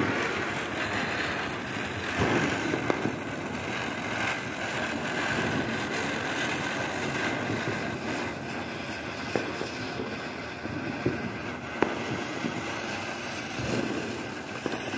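Ground fireworks burning together: a steady fizzing hiss with dense crackle, broken by a handful of sharp pops.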